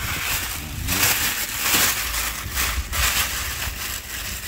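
Thin plastic produce bags rustling and crinkling as they are grabbed and lifted, in uneven swells.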